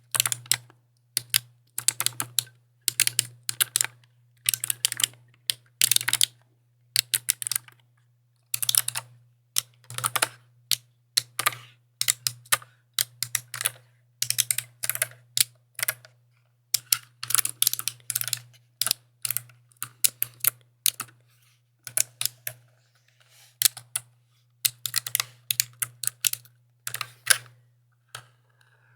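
Mechanical keyboard being typed on in short bursts of rapid key clicks, with brief pauses between the bursts. A steady low hum runs underneath.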